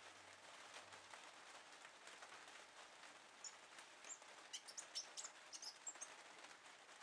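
Young blue tit giving faint, short, high-pitched chirps, a cluster of them from about halfway through, over a low steady hiss.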